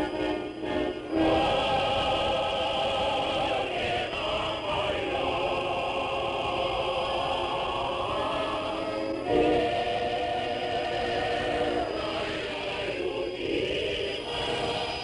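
A choir singing in long held chords that shift every few seconds, received over a Soviet shortwave radio broadcast.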